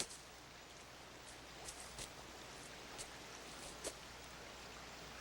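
Faint steady background hiss with a few soft, scattered clicks or rustles.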